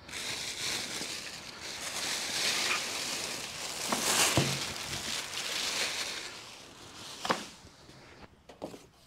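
Plastic wrap crinkling and rustling as it is pulled off a packaged condenser unit along with its cardboard packing, loudest around four seconds in. A single sharp knock comes about seven seconds in, and then it goes quieter.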